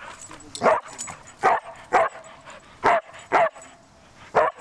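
Wheaten terrier giving six short, sharp barks about half a second to a second apart. This is excited play barking during a bout of zoomies.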